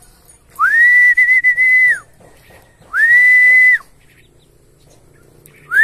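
Whistle calls from a pigeon keeper calling his flying pigeons back to the loft: three long notes on one high pitch, each swooping up at the start and dropping off at the end. The first note has a slight warble in the middle, and the third begins near the end.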